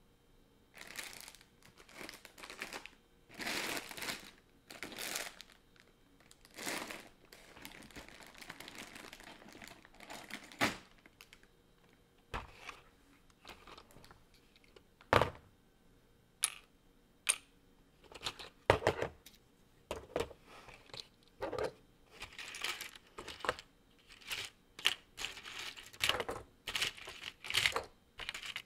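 LEGO bricks being pulled apart and handled: irregular plastic clicks and snaps with rustling of loose parts. Sharper single snaps come from about halfway through, and a quicker run of clicks near the end.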